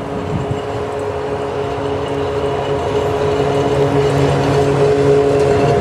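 Double-headed PKP Cargo ET22 electric locomotives hauling a heavy freight train, only one of them powered, the other hauled cold. They pass with a steady electric hum of several tones over the rumble of wheels on rail, growing louder as they approach.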